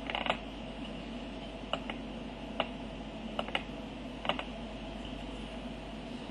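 Small buttons being pressed: about seven short, sharp clicks spaced irregularly, a couple nearly back to back, over a faint steady low hum.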